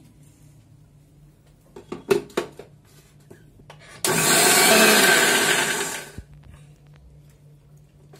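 Electric mixer grinder with a steel jar running in a short burst of about two seconds, grinding wet coconut and soaked red chilli masala paste. The motor starts abruptly about four seconds in and winds down. A few sharp knocks come about two seconds in, as the lid and jar are fitted.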